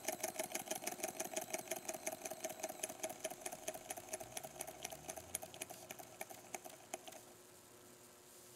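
Small brass toy beam steam engine running with a fast, even clicking beat that slows and fades, stopping about seven seconds in as the engine comes to rest. Only a faint steady hiss remains after it stops.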